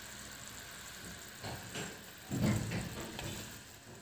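Sugar syrup simmering in a frying pan with a faint, even bubbling hiss; a few soft knocks, then a dull thump a little past halfway through.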